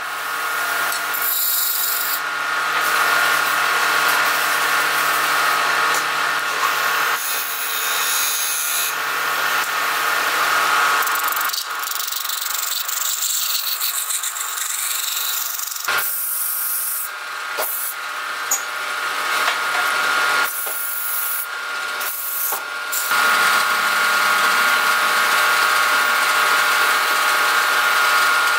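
Wood lathe running steadily with a spinning wooden vase, while a hand-held tool and abrasive rub against the turning wood, the rough scraping starting and stopping several times over the lathe's steady hum.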